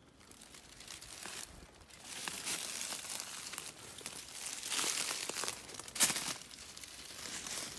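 Footsteps crunching through dry leaf litter and brushing through undergrowth, irregular and building after the first second, with one sharp crack about six seconds in.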